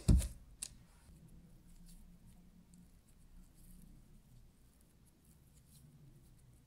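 One sharp knock just after the start, with a lighter click about half a second later, as hands lift a dough round off a parchment-lined metal baking tray. After that, faint soft rustles and ticks from fingers pinching red velvet cookie dough up around the sides of a disc of frozen cream cheese.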